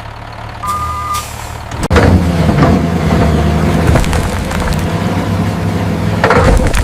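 Heavy diesel machinery engine running low, then jumping to a loud, steady high-load run about two seconds in. A brief beep sounds about a second in, and a short hiss comes near the end.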